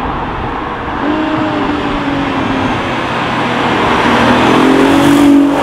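Audi TT's 3.2-litre V6 through an aftermarket Bastuck four-pipe exhaust, running under throttle. The exhaust note rises in pitch about a second in, then climbs again and gets louder toward the end.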